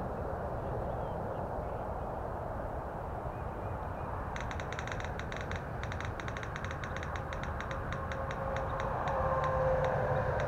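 A spinning prize wheel whose pointer clicks rapidly against the pegs, the clicks slowing and spacing out as the wheel coasts to a stop, over a steady low background rumble.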